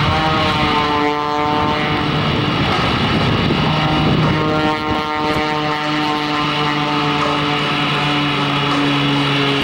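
Aerobatic propeller plane's piston engine droning in a steady pitched note as it flies low. About halfway through the engine note changes to a different pitch.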